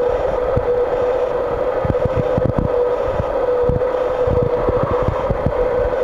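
John Deere 5820 tractor's diesel engine idling steadily, with a held whine over the engine note. Irregular low thumps sound on the microphone throughout.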